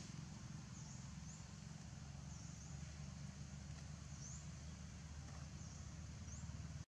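Faint outdoor ambience: a steady low hum with several faint, short high chirps scattered through it.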